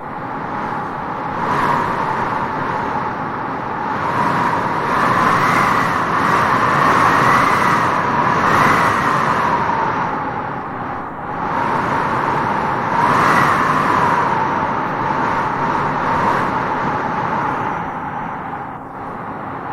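Wind blowing through grass, a steady rush that swells in gusts several times and eases between them.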